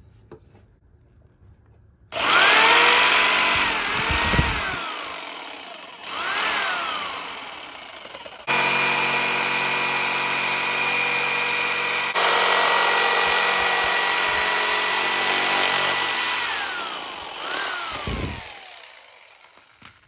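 Corded jigsaw cutting an opening in a plastic panel. It is started and stopped four times, each run spinning up with a rising whine and winding down as the trigger is let go. The longest run is steady for about eight seconds in the middle.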